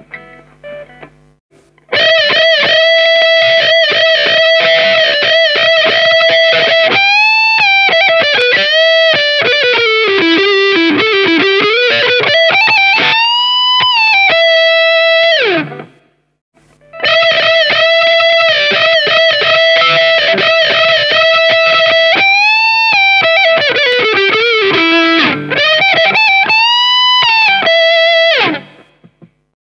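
Electric guitar playing a lead phrase twice, with a short break between. Each time it holds a long note at one pitch, then glides down in pitch and bends back up.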